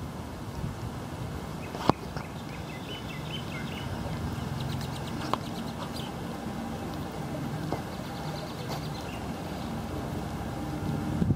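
Low wind rumble on the microphone with a few short bird chirps, and one sharp knock about two seconds in.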